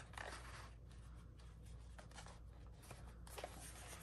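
Faint rustling and light scraping of paper as a Hobonichi planner's thin pages and cover are handled and worked into the planner cover, with a few soft ticks.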